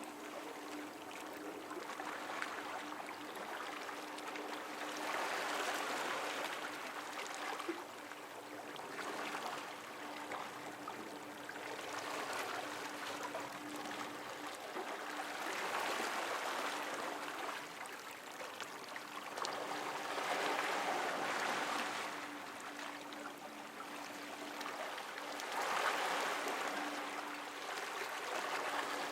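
Water lapping and washing, swelling and ebbing in surges about every five seconds, over a faint steady hum.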